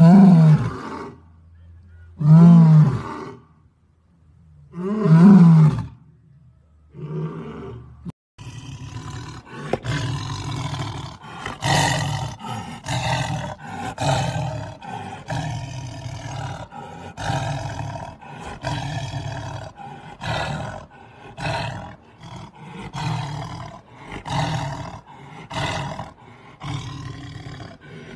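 A lion giving a series of loud roaring calls about two and a half seconds apart, then, from about eight seconds in, a white tiger growling and snarling over a piece of raw meat, a rough call about once a second.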